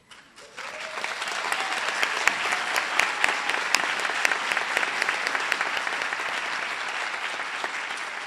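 Audience applauding: many hands clapping, building up over the first second or two and then holding steady.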